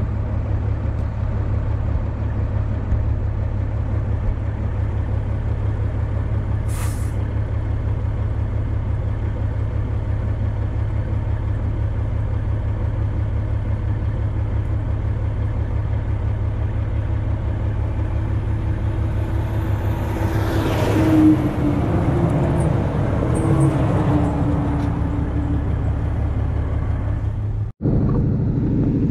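Semi truck driving at highway speed, its engine and tyres giving a steady low rumble from a camera mounted outside the cab. A little past two-thirds of the way in an oncoming truck passes with a louder rush that rises and fades.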